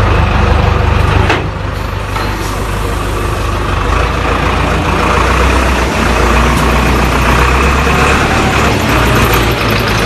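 XD926G 2-ton wheel loader's diesel engine running steadily and loudly, with a single sharp knock about a second in.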